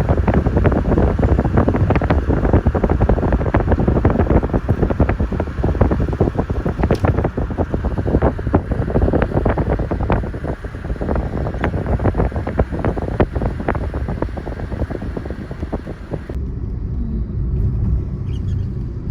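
Wind buffeting and crackling on the microphone at a car's open window while driving, over low road rumble. About three-quarters of the way through the wind noise cuts off suddenly, leaving only the car's low rumble.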